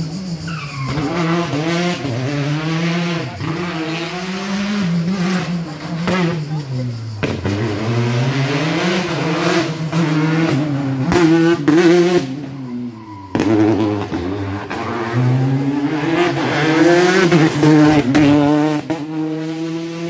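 Racing car engine revving hard and lifting off over and over, its pitch climbing and dropping every second or two through the slalom's tight turns and gear changes. The sound breaks off abruptly about seven seconds in and again near thirteen seconds, then picks up again.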